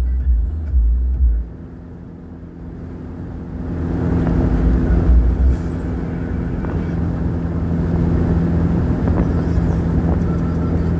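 Steady engine hum and road noise heard inside a moving car, growing louder a few seconds in. Bass-heavy music stops about a second and a half in.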